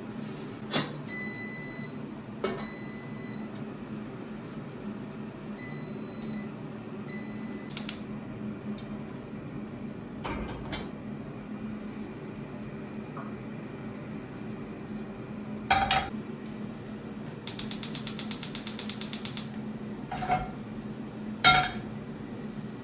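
Kitchen work during breakfast preparation: scattered clicks and knocks of utensils and objects being handled over a steady appliance hum. A few brief faint high tones sound in the first half, and a rapid, even run of clicks lasts about two seconds near the end.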